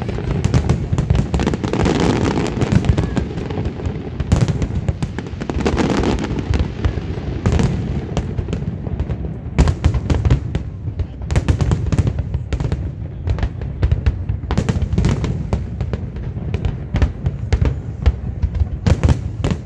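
Aerial fireworks display: many shells bursting in rapid, overlapping bangs over a continuous low rumble.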